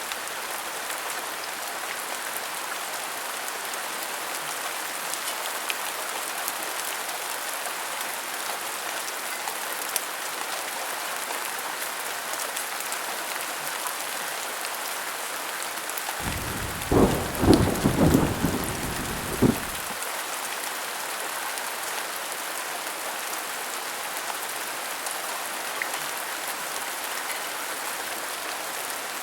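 Steady rain falling throughout. About halfway through, a clap of thunder rumbles for a few seconds with several loud cracks, then stops abruptly.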